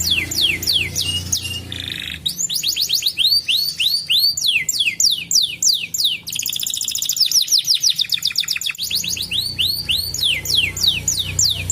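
Domestic canary singing a continuous song of fast trills, each made of rapidly repeated falling whistled notes. The trill changes to a new pattern every second or two.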